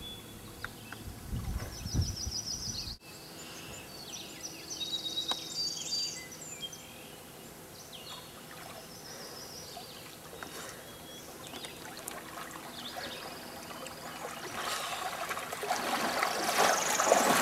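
Birds chirping and trilling outdoors, with a low rumble in the first few seconds that cuts off abruptly. Near the end, splashing, trickling water grows louder.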